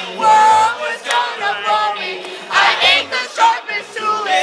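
Music with a group of people singing and shouting along, several voices at once in loud bursts.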